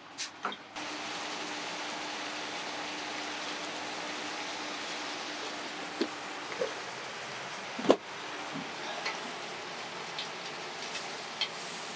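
Lobster carcasses, vegetables and white wine sizzling hard in a large stockpot as the wine reduces: a steady hiss that starts just under a second in. A few sharp knocks against the pot cut through it, the loudest about eight seconds in.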